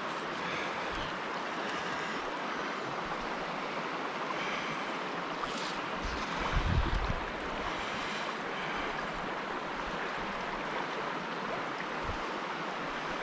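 Steady rushing of a flowing trout creek, with a short low buffet on the microphone about halfway through.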